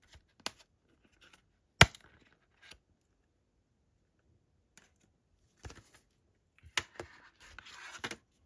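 A metal SteelBook disc case being handled: a few sharp clicks and taps, the loudest about two seconds in, then a scraping, rustling stretch near the end.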